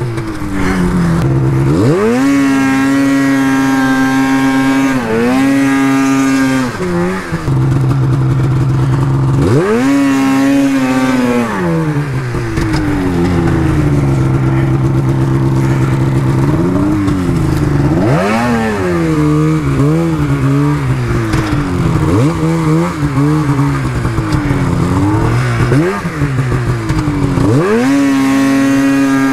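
Polaris Pro RMK 800 two-stroke snowmobile engine with an aftermarket SLP exhaust can, revved hard under load and held at high revs several times, falling back between pulls. Through the second half it gets a run of quick throttle blips before climbing and holding high again near the end.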